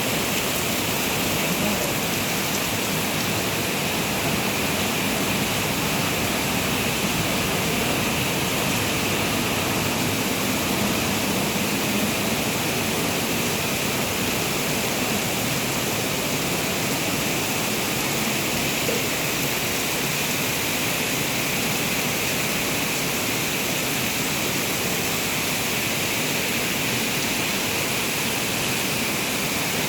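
Steady rain falling, an unbroken even hiss with no let-up.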